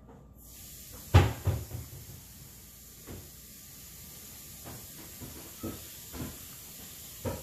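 Hollow plastic ball knocked about by a cat's paw on carpet: a string of irregular plastic knocks and thumps, the loudest about a second in, with fainter ones spread through the rest.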